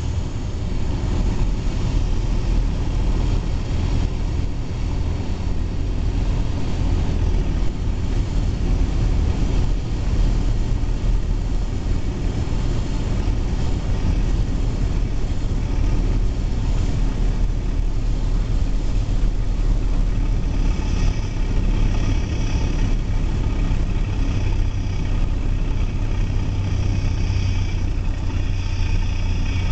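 Cessna 172's piston engine and propeller running steadily at reduced power on final approach and flare, heard from inside the cockpit.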